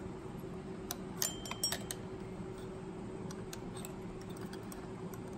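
Light metallic clicks of a ground-down open-end wrench on the carburetor mounting nut of a Johnson 9.9 two-stroke outboard, as the nut is worked an eighth of a turn at a time. The clicks come in a cluster about a second in, then scattered, over a steady low hum.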